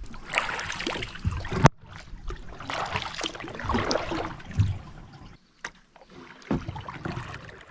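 Kayak paddling: the paddle blade dips and pulls through calm water in three swells of swishing and dripping. A single sharp knock comes about a second and a half in.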